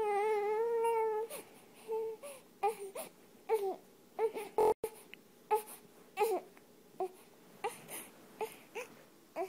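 Newborn baby crying: one long wavering wail, then short broken sobs coming about every half second. A brief loud bump with a split-second dropout comes just before halfway.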